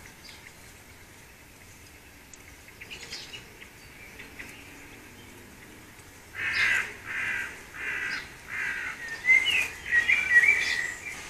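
Bird calls: four loud, harsh, caw-like calls in a row about three-quarters of a second apart, then quicker, higher chirping near the end, over faint background birdsong.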